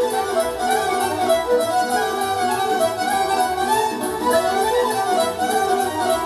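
Pan flute (nai) and violin playing a melody together over keyboard backing that keeps a steady beat.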